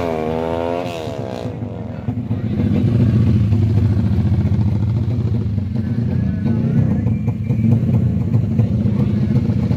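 Motorcycle engine revving, its pitch climbing and dropping within the first second and then fading, followed by a motorcycle engine running low and steady close by.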